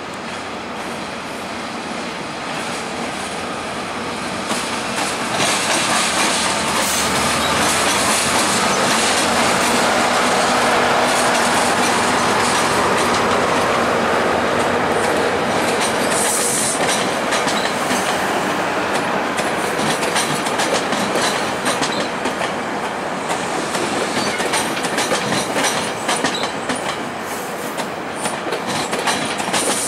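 Two MP54PH-3C diesel locomotives pass, getting louder until they go by about a third of the way in. Bilevel passenger coaches follow, rolling steadily with rapid clicking of wheels over rail joints and switches, and one brief high squeal about halfway through.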